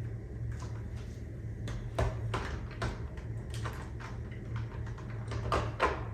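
Scattered light knocks and clicks of things being handled, about a dozen at irregular intervals, over a steady low hum.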